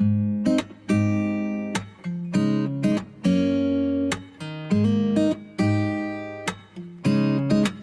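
Background music: an acoustic guitar strumming chords in a pop song's instrumental passage, with no singing. It starts suddenly out of a brief silence.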